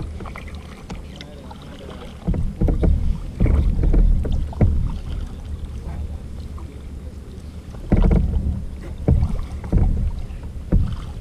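Sea kayak being paddled on calm water: paddle strokes dipping and splashing, with low thuds knocking through the hull, in two spells with a quieter stretch in the middle.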